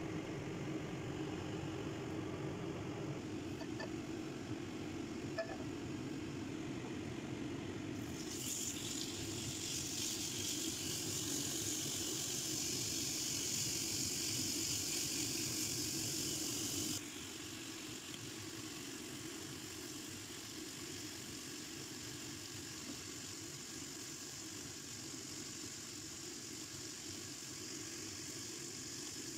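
Sliced marinated pork sizzling in hot oil in a nonstick frying pan. The sizzle starts suddenly about a quarter of the way in, then drops off abruptly a little past halfway to a fainter hiss, over a steady low hum.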